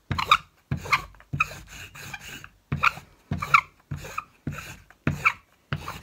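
Wooden rolling pin pushed back and forth over a slab of clay on a tabletop: a short rolling stroke repeated about ten times, a little under twice a second.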